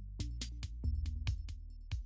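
Electronic background music with a steady drum-machine beat and a heavy bass line.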